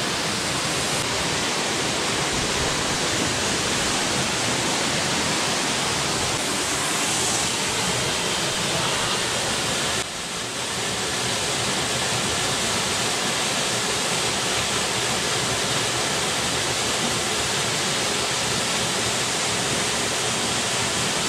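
Waterfall pouring into a shallow pool: a steady rush of falling water.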